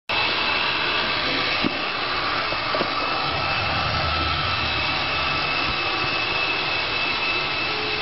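Roomba robot vacuum running: a steady whir from its motor and brushes with a thin high whine over it, and two faint knocks about two and three seconds in.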